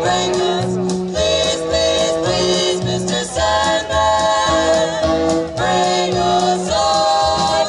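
Live 1940s-style swing music: a female close-harmony vocal trio singing held chords over band accompaniment, the harmony notes changing every second or so over a bass line.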